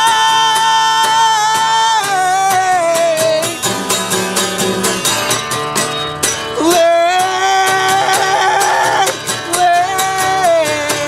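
A singer holding long notes that glide down in pitch and waver near the end, over strummed acoustic guitar.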